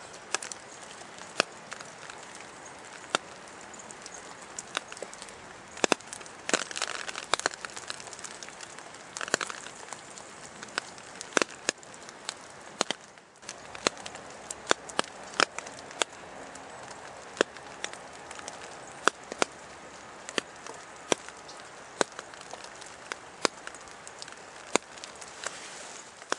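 Outdoor ambience: a steady soft hiss with sharp ticks and pops at irregular intervals, sometimes several close together.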